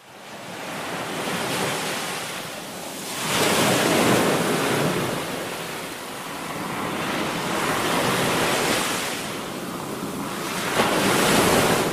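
Sea waves breaking and washing over a dark gravel beach, swelling and ebbing in three surges, loudest about four seconds in and again near the end.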